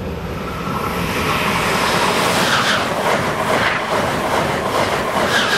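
Amtrak Acela Express high-speed train passing close at speed, a loud rushing roar of wheels and air that builds over the first couple of seconds as it arrives and stays loud as the coaches stream by.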